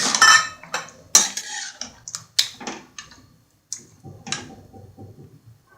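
Metal utensil clinking and scraping against a kadai of chicken curry: a quick run of sharp clatters, then softer knocks toward the end.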